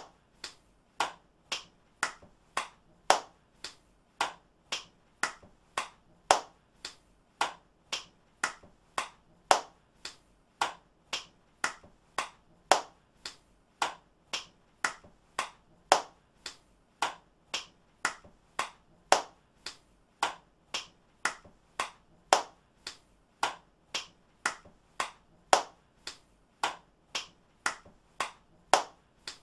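One person's hand claps in a steady, even rhythm of about two a second, with a louder clap every three seconds or so as the same short clapping clip loops.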